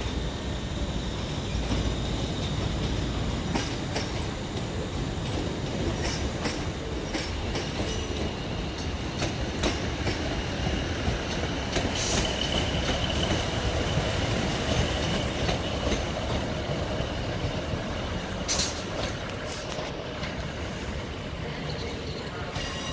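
Passenger train wheels rolling over curved station pointwork: a continuous rumble with sharp clicks as the wheels cross rail joints and crossings. A thin, high flange squeal from the curves rings strongest around the middle.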